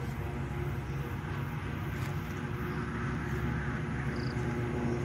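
A steady, low mechanical hum at a constant pitch, like an engine running.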